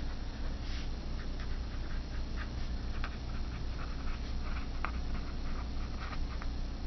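Pen writing on paper on a clipboard: a quick run of short, faint scratching strokes over a steady low hum.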